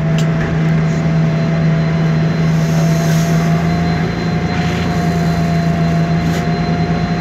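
MAN Lion's Classic city bus with a CNG engine and Voith DIWA automatic transmission, heard from inside the cabin. It gives a loud steady drone with a steady whine above it, which drifts slightly upward in pitch; the transmission is known for being noisy.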